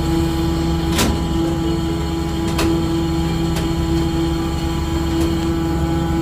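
Ship's engine running with a steady drone and low hum. Two short sharp clicks come about a second in and again a second and a half later.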